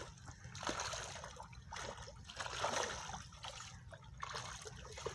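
Shallow pond water splashing and sloshing in a few irregular bursts as a man wades through it working a fishing net.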